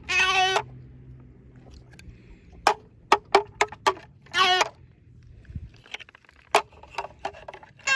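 Electronic sound effects from an owl shape-sorter toy: a short warbling tone at the start, another about four seconds in, and a brief steadier tone at the end. In between come a series of sharp clicks and knocks.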